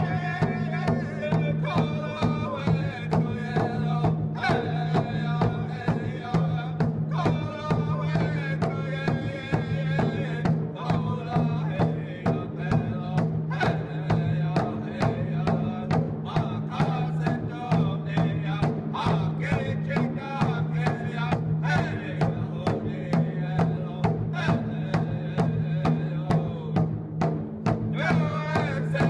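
Music with a steady drum beat over a sustained low drone and a wavering melody.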